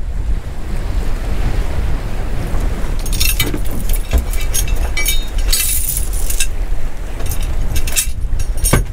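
Wind buffeting the microphone over sea noise. From about three seconds in, a run of irregular metallic rattles and clinks as the anchor and its chain are handled and stowed in the boat.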